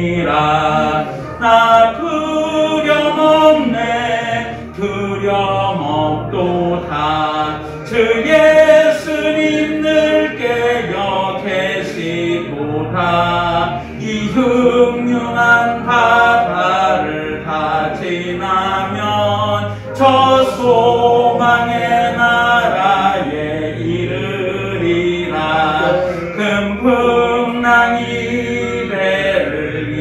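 A man singing a slow hymn into a microphone, with long held notes that waver in pitch.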